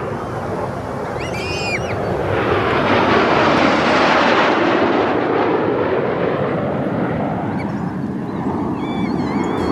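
Formation of jet aircraft flying past, their engine noise swelling to its loudest about four seconds in and then easing off. A short high-pitched call sounds about a second in, and another near the end.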